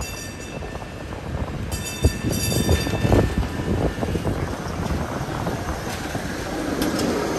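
PCC electric streetcar passing close by on street track: a steady rumble of wheels on rails with a high-pitched whine that comes and goes twice, and a single knock about two seconds in.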